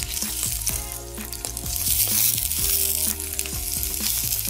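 Raw sausages sizzling in hot olive oil in a frying pan as they are laid in; the sizzle grows louder about two seconds in. Background music plays underneath.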